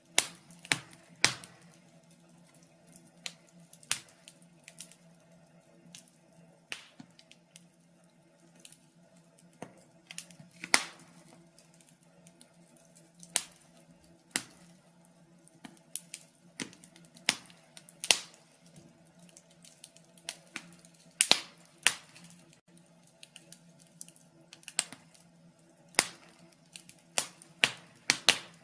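Fire crackling in a fireplace: sharp, irregular pops and snaps, sometimes seconds apart and sometimes several in quick succession, over a faint steady low hum.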